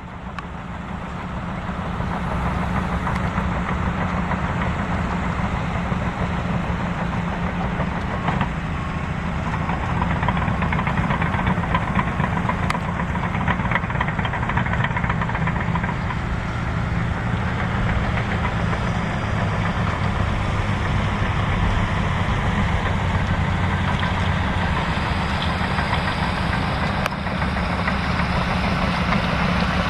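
Small propeller airplane's piston engine droning steadily on a landing approach, with its pitch dropping slightly past the middle.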